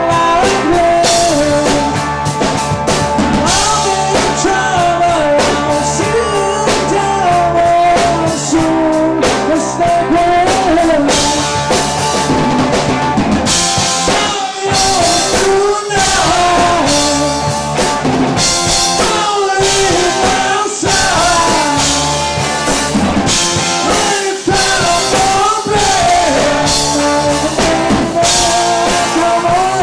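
Live rock band playing loudly: electric guitar, electric bass and a drum kit, with a singer's vocal. The band cuts out for two very short breaks about halfway through.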